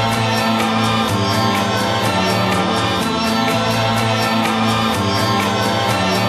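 Background music: held low tones that shift every second or two over a steady quick beat.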